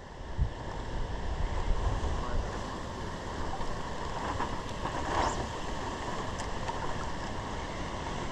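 Steady rush of flowing river water, with wind buffeting the microphone as a low rumble in the first couple of seconds.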